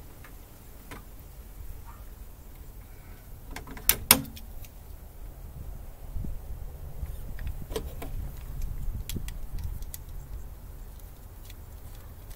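Sharp metallic clicks and rattles from hands and tools working inside a small metal breaker panel, with a loud double click about four seconds in and lighter clicks later. A low wind rumble on the microphone sits underneath.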